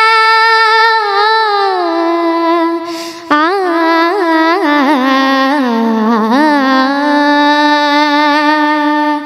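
A girl singing a wordless melodic passage in Indian classical style: a long held note that slides down, a short breath about three seconds in, then quick ornamented runs that settle onto a long held low note.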